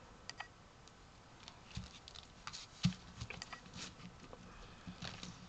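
Twine being tied into a knot over burlap on a canvas: faint scattered rustles, scratches and small clicks, with a soft thump about three seconds in.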